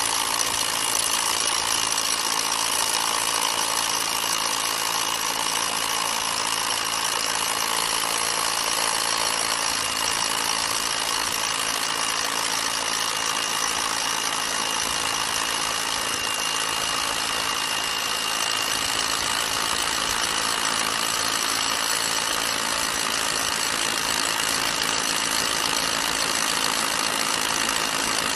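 Rotary hammer drill boring into concrete with a large four-flute bit, running steadily at an even level.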